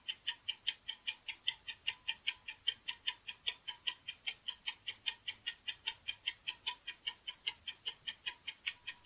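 Countdown timer sound effect: a clock ticking steadily, about four ticks a second.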